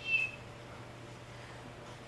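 The end of a high, thin whistling call from a small animal, stopping about a third of a second in. After it only a low steady hum remains.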